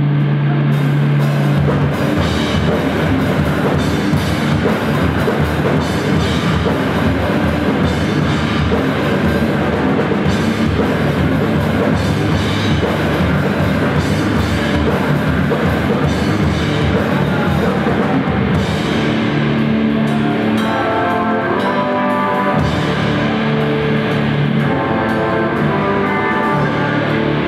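Live heavy rock band playing: distorted electric guitars, bass and a drum kit. A held low note opens it, then drums and guitars come in together; about two-thirds of the way through, the cymbals drop back and a guitar riff of separate notes stands out.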